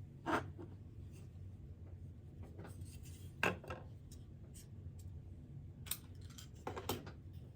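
Scattered light clicks and knocks as the small parts of an electric shaver are picked up and handled for reassembly: about five separate taps, the sharpest about three and a half seconds in and a quick pair near the end, over a low steady hum.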